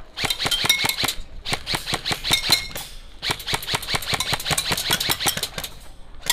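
Airsoft rifle firing rapid strings of shots, three strings with short breaks between them.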